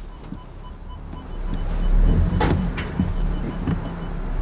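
A car engine pulling the convertible up the transporter's loading ramp, a low rumble that grows louder from about a second in, with a sharp clunk about halfway through. A faint, evenly paced beeping runs underneath.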